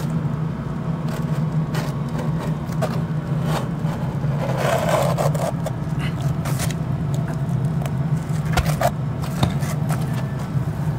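Knife cutting through a granule-surfaced roofing sheet: irregular scraping and crackling strokes as the blade drags through the mineral granules, the longest scrape about halfway through. A steady low hum runs underneath.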